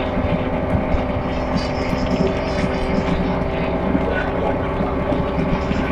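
City bus engine running steadily, with a steady hum and road noise throughout.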